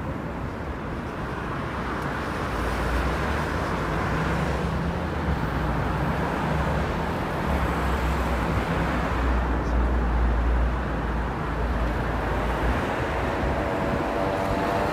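Busy road traffic: a steady roar of passing vehicles, with a heavy vehicle's low engine rumble through the middle. Near the end an engine's pitched note comes in.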